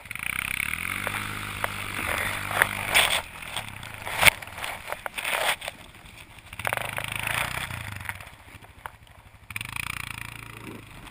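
ATV engine pulling a sled through snow, its note coming and going in stretches, over the hiss of the sled scraping across the snow. There are a few sharp knocks as the sled bumps.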